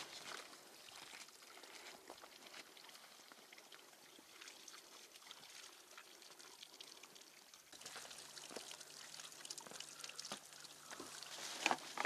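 Spring water trickling from a fountain's pipe spout, faint, with scattered crackles and rustling that grow busier about eight seconds in.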